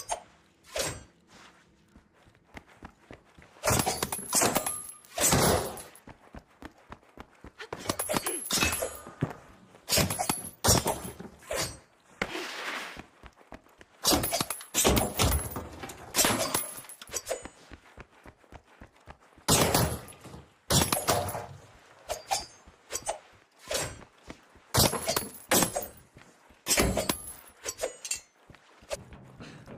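Wakizashi sword blades clashing in irregular flurries of sharp metallic strikes with a bright ringing, separated by short pauses.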